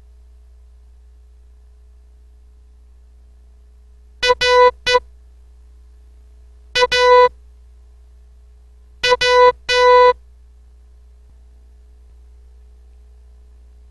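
Morse code sent as electronic beep tones: three characters, each a quick pattern of short and long beeps, spaced about two seconds apart, forming a word for the learner to decode.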